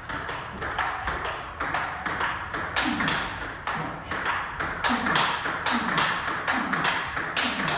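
Table tennis ball clicking off the rackets and the table in a continuous rally, about three or four hits a second.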